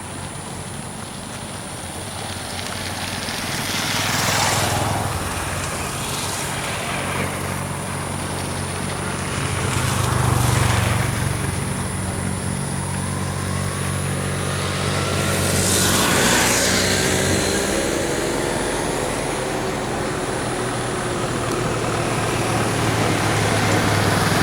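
Road traffic: several vehicles pass one after another, each swelling up and fading, over a steady low engine hum. One vehicle's engine rises in pitch as it accelerates midway.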